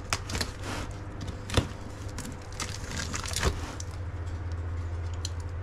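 Utility knife slicing through plastic wrap and packing tape on a cardboard box, with irregular scraping and crinkling and a couple of louder rips, over a steady low hum.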